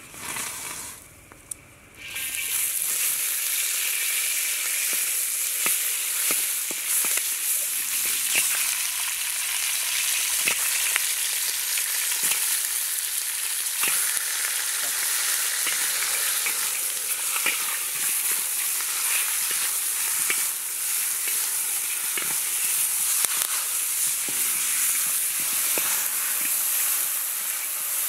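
Pieces of snake sizzling as they fry in a large steel wok, a steady hiss with small pops and crackles; the sizzle starts suddenly about two seconds in.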